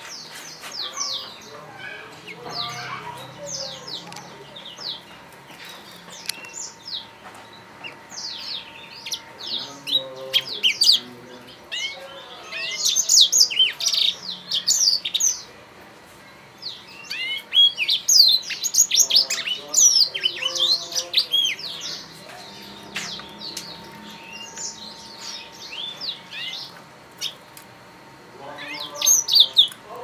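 Young black-throated canaries (blackthroats) singing: rapid, high twittering phrases of chirps and trills that come in bursts, loudest about halfway through and again near the end.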